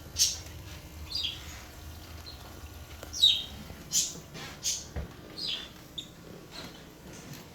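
A bird chirping repeatedly: about eight short, high chirps, each sliding downward in pitch, at uneven intervals, over a faint low hum.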